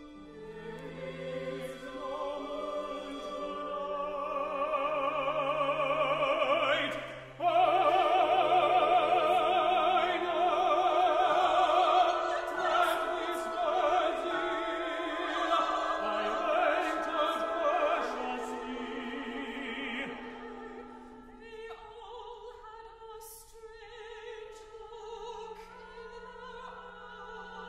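Contemporary chamber opera: singing with wide vibrato over a small instrumental ensemble. The music builds, jumps sharply louder about seven seconds in, then falls back to softer held chords after about twenty seconds.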